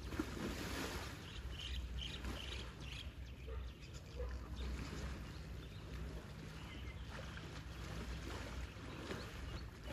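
Water splashing and sloshing as two Asian elephants, a mother and calf, roll about in a muddy pool, with a stronger splash at the very start and lighter splashes after.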